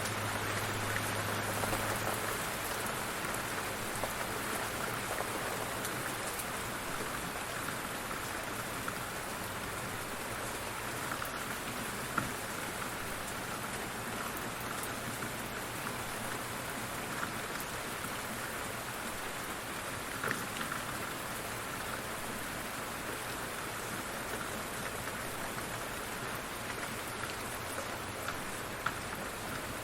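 Light rain falling steadily, an even hiss with a few single louder drops standing out now and then.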